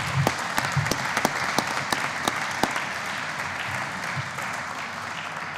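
Audience of delegates applauding, a dense patter of handclaps that slowly dies down toward the end.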